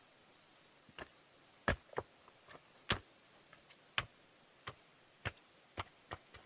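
A series of short, sharp knocks or chops, about one a second and irregularly spaced, some louder than others.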